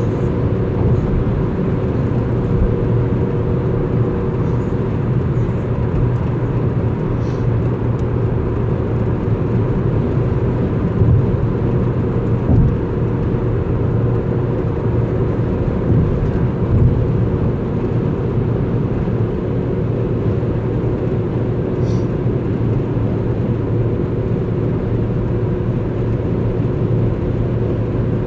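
Vehicle running steadily: a constant low engine and road drone with a faint, steady whine above it.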